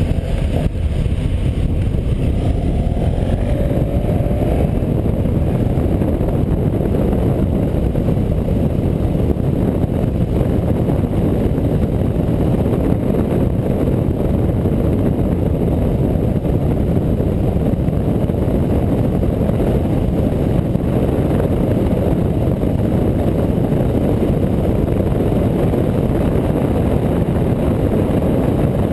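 Motorcycle on the move: a steady rush of wind on the microphone mixed with engine and road noise. In the first few seconds there is a faint rising engine tone as the bike pulls away.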